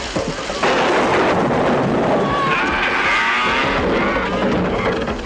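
Loud, rough rushing noise of a heavy truck being run off the road, jumping up sharply about half a second in, with a wavering high-pitched sound over it through the middle.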